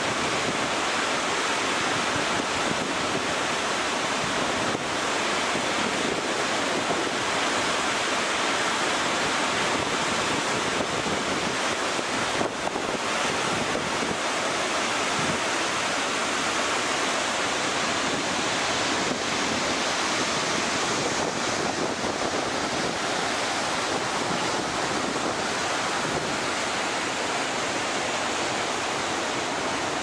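A large waterfall pouring into a churning plunge pool, a steady rush of falling water that never lets up.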